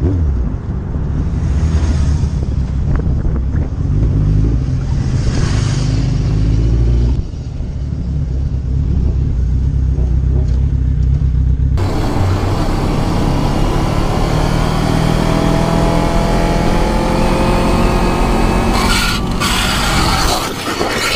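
Wind rushing over the microphone with engine noise underneath, from a camera riding at highway speed. About twelve seconds in it gives way to a sportbike engine revving up, its pitch climbing steadily as the bike accelerates.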